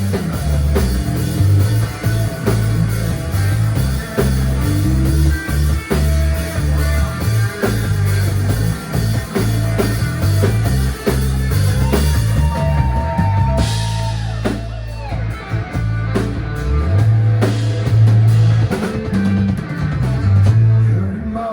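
Live rock band playing an instrumental break: guitars, bass and a drum kit. About two-thirds of the way through the drums and cymbals drop out for a few seconds under a held note, then the full band comes back in.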